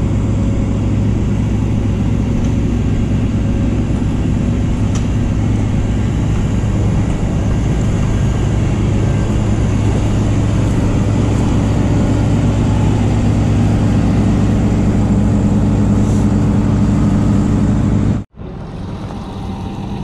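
Tow truck's engine running steadily close by, a low even drone that grows slightly stronger about halfway through. Near the end it cuts off abruptly and a quieter engine hum follows.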